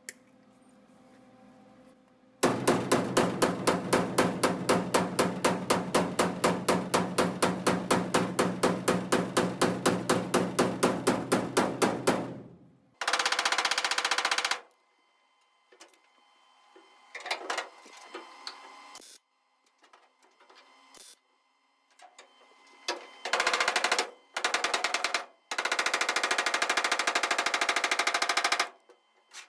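Sheet-metal welding on the body panel in a run of separate bursts. The first burst lasts about ten seconds, a steady hum with an even crackle pulsing about five times a second. It is followed by several shorter bursts, the longest lasting about three seconds near the end.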